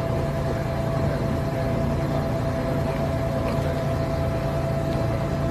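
Heavy machinery engine running steadily under load, a constant low hum with a steady high whine above it.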